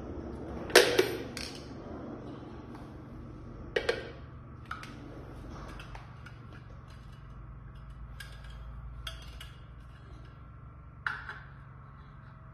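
Metal parts of a printer mounting stand clinking and knocking as they are handled and fitted together. There are a few sharp knocks, the loudest about a second in, a quick pair about four seconds in and one near the end, with lighter ticks between.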